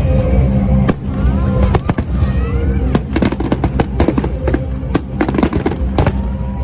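Fireworks bursting in quick succession, sharp bangs and crackles that come thick and fast from about three seconds in, over steady background music.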